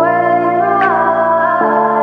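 Background music of sustained, layered chords, with a sharp accent a little before the middle and a chord change about one and a half seconds in.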